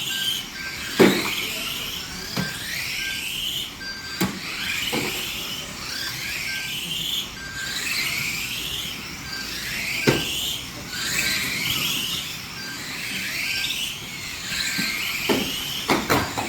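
Radio-controlled stock cars racing: their motors give rising whines over and over as the cars accelerate out of the corners, cut by several sharp knocks of contact, the loudest about a second in.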